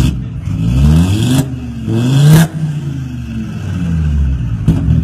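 Tuned Volkswagen Golf engine revved hard twice through its exhaust, the pitch climbing quickly each time and ending in a sharp crack as the throttle closes, then sinking back toward idle. Another crack comes near the end.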